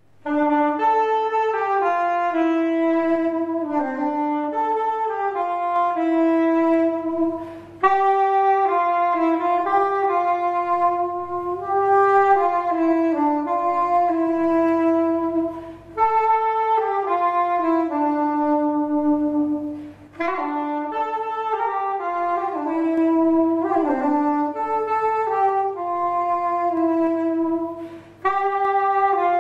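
Solo tárogató, the Hungarian wooden single-reed woodwind with a saxophone-like tone, playing an unaccompanied melody. The phrases are broken by a few short breaks for breath.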